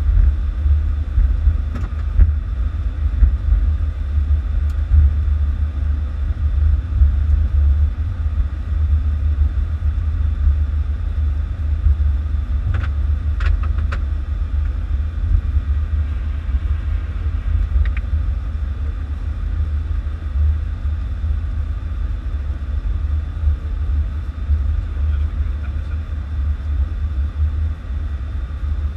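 Steady low rumble in a Boeing 747's cockpit as the airliner rolls along the runway after landing. There are a few faint clicks about halfway through.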